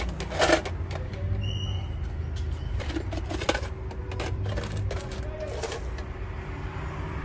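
Metal tools clinking against a metal tin as a tool is taken out and dropped back in: a few sharp clinks just after the start and a cluster again around three seconds in, over a steady low street rumble.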